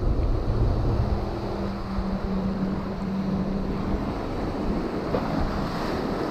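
Ocean surf breaking and washing in over shoreline rocks, with wind buffeting the microphone. A low steady hum runs through the first few seconds.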